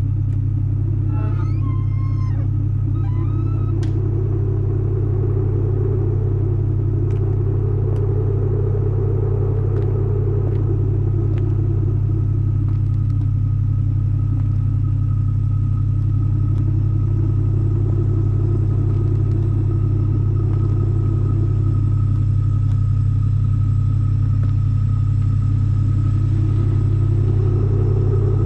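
Steady, heavy low rumbling drone with slow swells rising and fading every several seconds over it, and a faint high steady tone. In the first few seconds a wooden door creaks on its hinges as it is pushed open.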